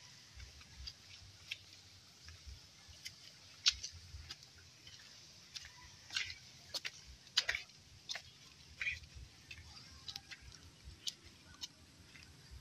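Footsteps along a rough, stony, leaf-strewn path: irregular light crunches, scuffs and clicks at uneven intervals, over low dull thumps.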